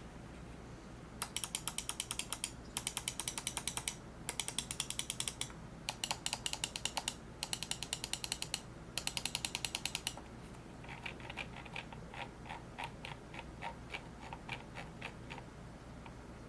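LAMZU Thorn gaming mouse clicking: six rapid bursts of sharp clicks, each about a second long with brief pauses between. Then a run of quieter, more widely spaced clicks follows.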